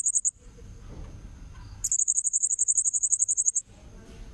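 Blue-crowned hanging parrot (serindit) calling in rapid, very high-pitched pulsed trills, about a dozen pulses a second. One trill stops just after the start, a second runs for nearly two seconds in the middle, and a third begins at the end, over a faint low rumble.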